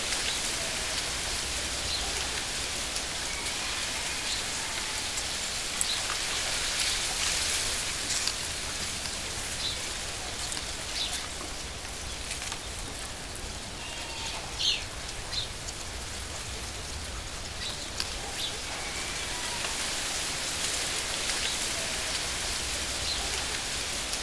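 Steady hiss of falling or running water, with short, high bird chirps now and then; the loudest chirps come about halfway through.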